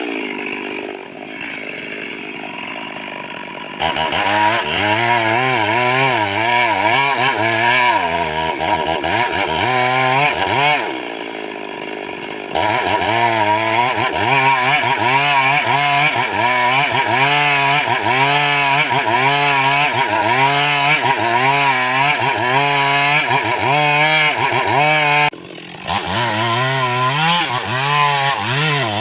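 Stihl MS 382 two-stroke chainsaw running loud, its engine pitch rising and falling over and over. It drops to a quieter, lower note for a few seconds at the start and again around the middle.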